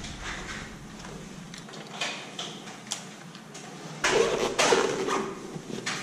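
Mountain bikes and gear being handled: scattered knocks and clatter, with a louder scraping squeal about four seconds in.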